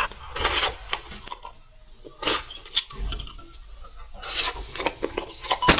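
Close-miked eating sounds: scattered sharp clicks and a few short crunches, with quieter gaps between them.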